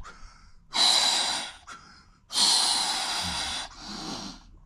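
A man breathing heavily while sitting in a near-freezing ice bath: two long, loud breaths, then a softer one near the end.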